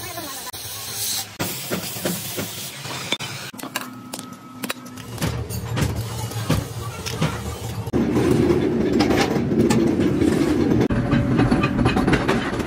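Metal-workshop noise: a short hiss at the start, then scattered clinks and knocks of metal. From about eight seconds a louder, steady clatter of a flywheel-driven forging press running.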